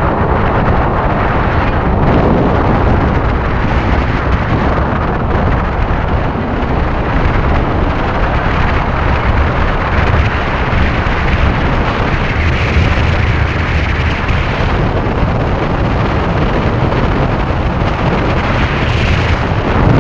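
Strong wind of a dust storm buffeting the microphone: a loud, steady rumble and rush that swells and eases in gusts.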